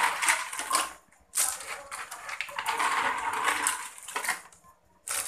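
Stones being pushed and shifted by hand inside a plastic bucket filter, a gritty rattling and grinding clatter as the top layer of filter stones is laid. It comes in two stretches with a short pause about a second in, then a brief burst at the end.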